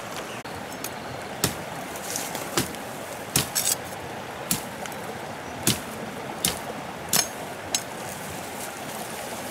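Machete chopping dry brush stems, about nine sharp cracks at irregular intervals over a steady rushing background.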